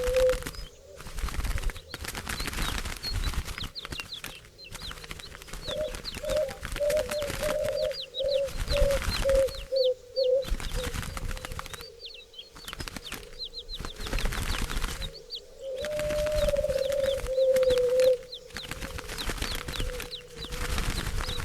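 Doves cooing in low, purring notes: a run of short coos about a third of the way in and a longer drawn-out coo later on. High thin chirps from smaller birds and bursts of rustling noise come and go.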